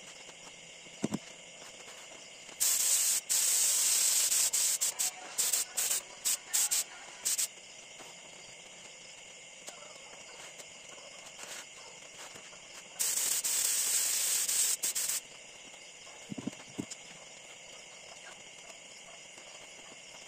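Air spray gun spraying finish onto a wooden chair: loud bursts of hissing air. A long burst comes a few seconds in, then a string of short trigger pulls, then another burst of about two seconds about two-thirds of the way through. A couple of soft knocks come between them.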